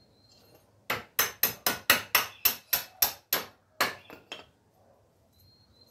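Hammer striking the wooden bench frame in quick succession: about a dozen sharp blows at roughly four a second, starting about a second in and ending with two lighter taps.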